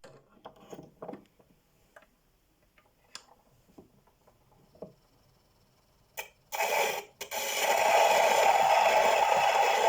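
Scattered faint clicks and knocks, then two sharper knocks about six and seven seconds in. From about seven and a half seconds in, the 1909 Sirena Grand Record shellac disc's surface noise starts: a loud, steady hiss with crackle, before any music. The hiss comes from the disc's poor, worn-sounding surface at its opening grooves.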